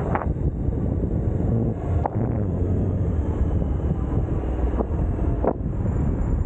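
Suzuki Burgman 650 maxi-scooter's parallel-twin engine running while riding at low speed, under steady wind noise on the microphone. A few short clicks come through.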